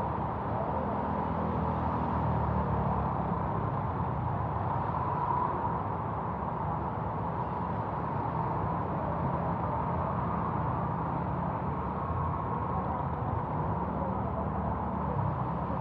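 Street traffic: vehicle engines running in a steady low rumble under a constant wash of noise.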